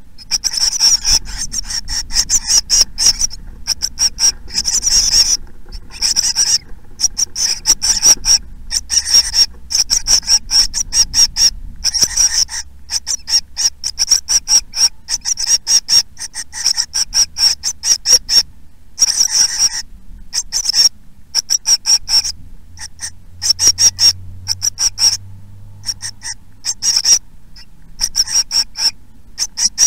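Blue tit nestlings calling in the nest: rapid runs of short, thin, high-pitched calls, broken every few seconds by brief pauses.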